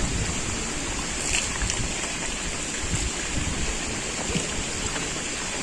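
Steady rushing water noise, with a few faint clicks.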